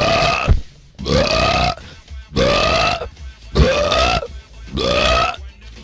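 A person belching five times in a row, loud burps of about half a second each, a little over a second apart and much alike in shape.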